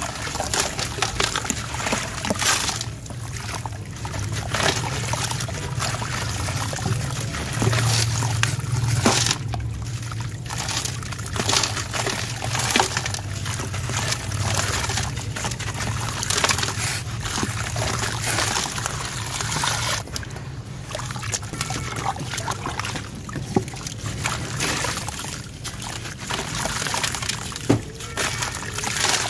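Sand-cement chunks crumbled by hand, gritty crunching with sand pouring and trickling down into a basin of water, and sloshing as hands dip into the water.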